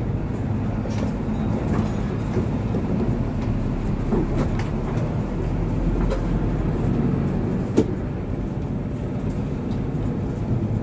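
Steady rumble of a Hino RK8 bus running on the road, its diesel engine droning low, with light rattles and a single sharp knock about eight seconds in.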